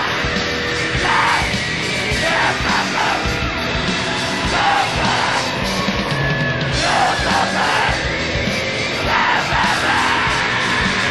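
Live noise-hardcore: a dense wall of distorted noise with shouted, screamed vocals coming in bursts.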